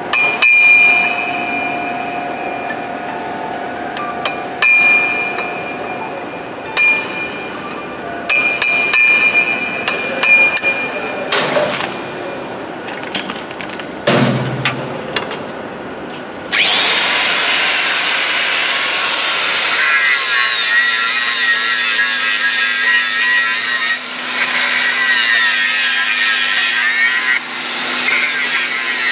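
Metal clinks and knocks, some ringing, as the steel pipe and fixture are handled. About halfway through, a handheld angle grinder starts and runs steadily, grinding the weld on the carbon steel pipe.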